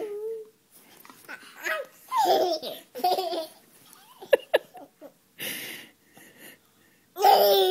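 Baby laughing and squealing in short bursts while playing with a dog, with a couple of sharp clicks about four and a half seconds in.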